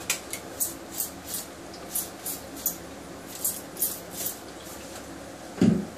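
Plastic trigger spray bottle of water squirted onto hair, about a dozen quick, uneven squirts over the first four and a half seconds. A short low thump comes near the end.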